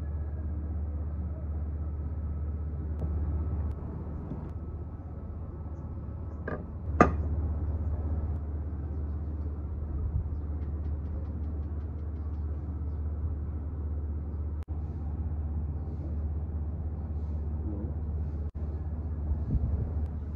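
Steady low background rumble, with a sharp knock about seven seconds in and a softer one just before it, as wooden serving ware is set down and handled on the table.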